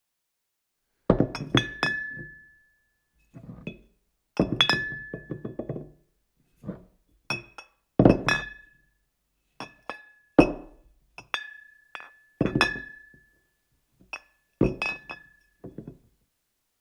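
Glass knocking and clinking against a table in a series of separate hits, about one a second and some in quick clusters of two or three, with dull thunks mixed in. Several hits leave a brief clear ring.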